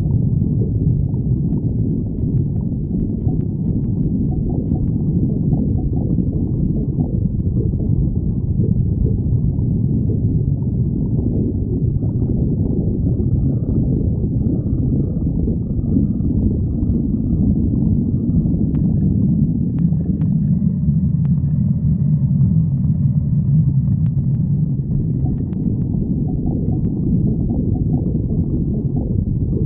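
A hungry stomach growling and gurgling: a continuous low rumble, with a steadier groaning tone about two-thirds of the way through.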